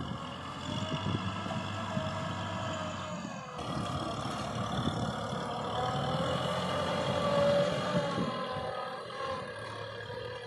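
Kubota tractor's diesel engine running under load as it drives a rotary tiller through dry soil. The engine's pitch wavers up and down, and the sound changes abruptly about three and a half seconds in.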